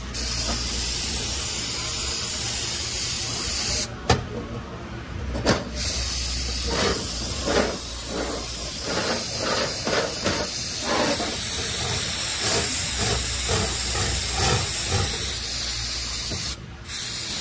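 Aerosol brake cleaner spraying onto a transmission drum in long, steady hisses, broken once about four seconds in and again near the end.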